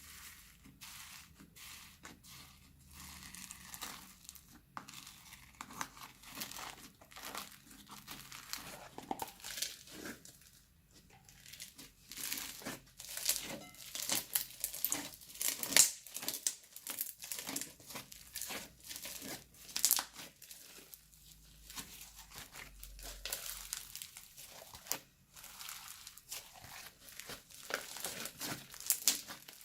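Hands kneading, stretching and folding slime, making a dense run of sticky crackles and pops that is loudest around the middle.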